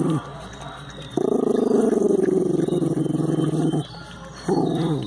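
Puppy growling over a bowl of ice: one long growl of about two and a half seconds, then a second growl near the end that falls in pitch.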